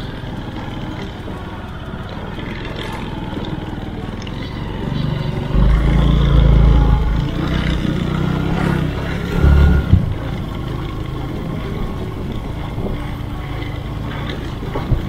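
Motorcycle engine running on the move, with two louder low rumbling stretches about six and ten seconds in.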